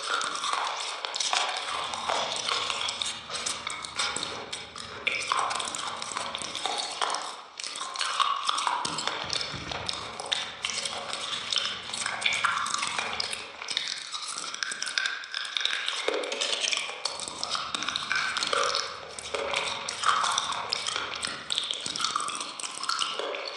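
Close-up eating sounds: wet smacking and chewing of soft cream and red jelly eaten by hand from a steel plate, a dense run of quick clicks.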